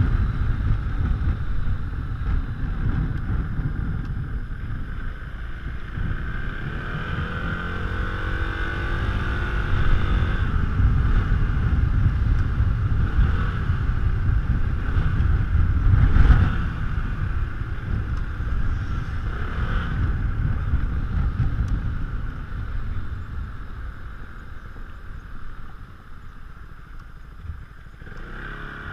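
Yamaha X-Max 400 scooter's single-cylinder engine running through an Akrapovic exhaust while riding, the revs rising and falling with the throttle, with wind on the microphone. The loudest burst of throttle comes about halfway through, and the engine eases off near the end.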